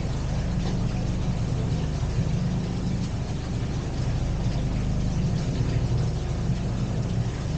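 A narrowboat's diesel engine idling steadily with an even low throb.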